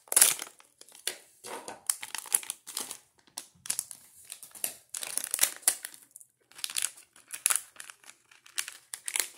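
Silver metallized anti-static bag crinkling and rustling in the hands as it is opened and handled, in irregular bursts with short pauses.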